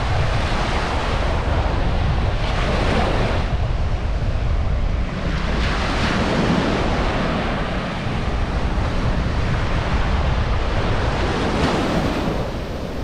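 Ocean surf washing onto the beach, swelling a few times, with wind rumbling on the microphone.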